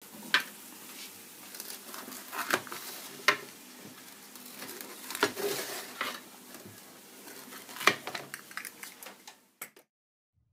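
A baked pizza being sliced in a metal pan: a blade scraping and clicking against the pan, with about five sharp knocks among the scraping, stopping shortly before the end.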